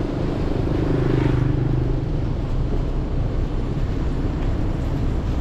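A large coach's diesel engine running with a steady low hum as the bus pulls slowly across the yard.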